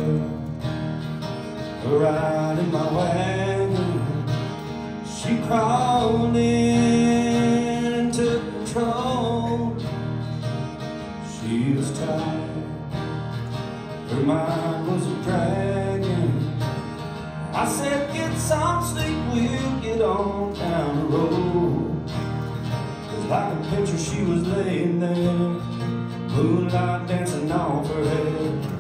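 Two acoustic guitars strummed together, with a man singing over them.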